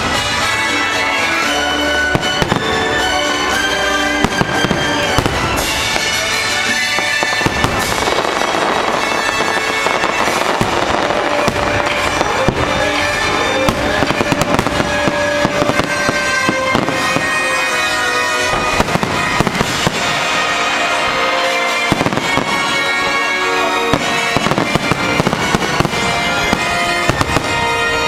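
Fireworks bursting in quick, irregular bangs and crackles over loud orchestral show music played through outdoor park speakers.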